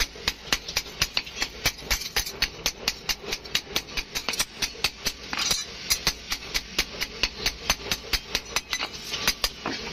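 Hand hammer striking a steel sickle blade on an anvil, the blade held with tongs: quick, even metallic blows, about four a second, without a break.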